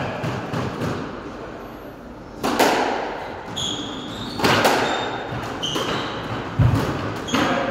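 Squash rally: the ball cracking off rackets and walls about four times, roughly two seconds apart, each hit echoing in the court, with short high squeaks of shoes on the wooden floor between hits.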